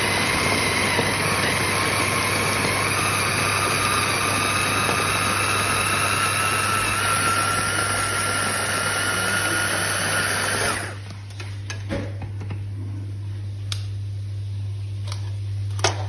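Small electric food chopper running, its blades pureeing sliced tomatoes, with a faint whine that rises slowly in pitch. The motor stops abruptly about eleven seconds in, followed by a few light clicks.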